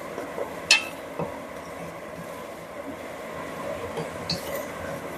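Wooden spatula stirring chunks of potato and carrot in a metal pot, with a few sharp knocks and scrapes against the pot, the loudest about a second in, over a steady sizzle of the vegetables frying in oil.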